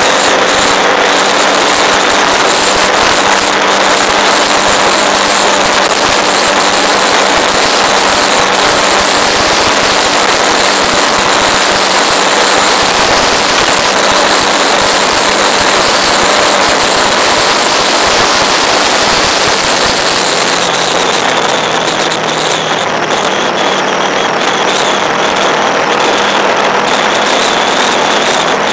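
Vehicle on the move at road speed: a steady engine note under loud wind and road rush. The high hiss eases a little about two-thirds of the way through.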